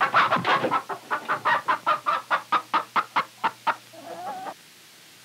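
An animal calling: a fast run of short, sharp calls, about five or six a second and slowing slightly, then one longer wavering call after about four seconds.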